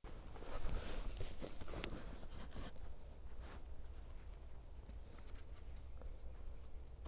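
Footsteps crunching on a dry forest floor of pine needles and twigs, busiest in the first couple of seconds, then scratchy rustling and small clicks as hands work at a canvas tarp and a wooden pole.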